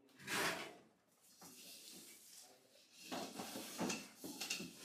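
Network cable bundles scraping as they slide through the drop ceiling while being pulled: a hissing scrape right at the start, then a cluster of scrapes about three seconds in.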